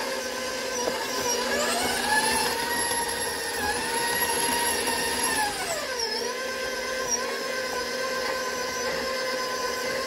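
KitchenAid Professional 5 Plus stand mixer motor whining steadily as its flat beater churns and shreds cooked pot roast in the steel bowl. The pitch of the whine rises about a second in, holds, then falls back near six seconds.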